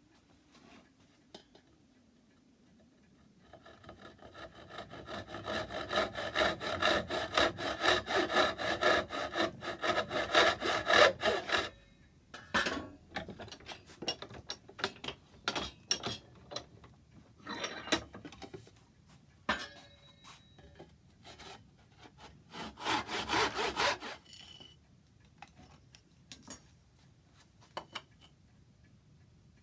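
A saw cutting wood in quick, even strokes with a ringing edge to it, from about 4 s to 12 s in. Scattered knocks and clicks follow, then a second short spell of sawing near the end.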